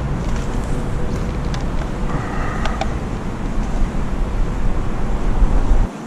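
Steady low rush of wind buffeting the camera microphone over fast-flowing river water at the bank, with a few light knocks and a brief faint tone in the middle. The low rumble drops away suddenly just before the end.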